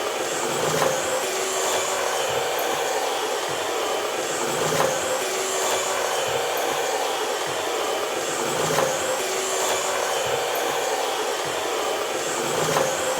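Steady whirring of a vacuum-cleaner motor, with a faint pattern and soft low thumps repeating about every four seconds.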